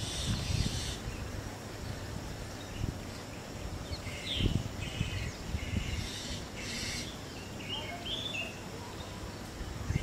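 Spotted owlets calling: about four short bursts of rapid chattering notes, with gaps of a second or more between them, over a low rumble.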